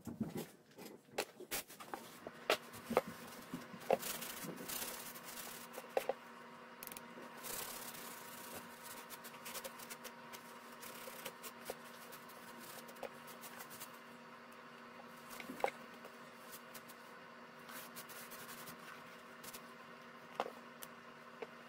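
A tissue rubbing and wiping dirt off a black leather paddock boot, with many scattered light clicks and knocks as the boot is handled and turned. A faint steady hum runs underneath.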